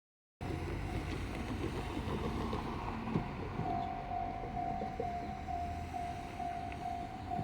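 Japanese level-crossing alarm ringing in one repeated pitched tone, just under two strokes a second, becoming clearer about halfway through. Under it are a steady low rumble and wind noise.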